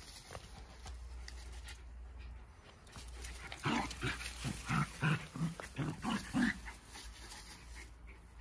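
Jack Russell terriers play-wrestling, with a quick series of short growls starting about three and a half seconds in and lasting about three seconds.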